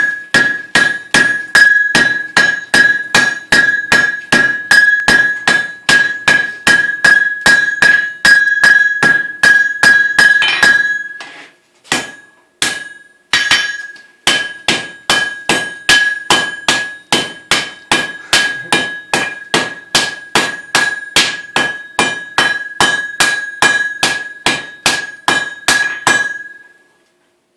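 Blacksmith's hammer and striker's sledge taking turns on hot steel over an anvil, about three blows a second, drawing out the steel; the anvil rings with a steady high tone under every blow. The blows break off briefly about eleven seconds in, then resume and stop shortly before the end.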